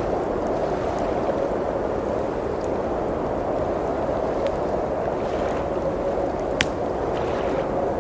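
Steady blizzard wind blowing, with scattered light fireplace crackles and one sharper pop about two-thirds of the way through.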